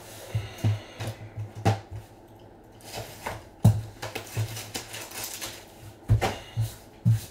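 Foil trading-card packs and a card box being handled on a table mat: scattered taps and thuds, the loudest about a third of the way in and near the end, with light rustling of the foil between.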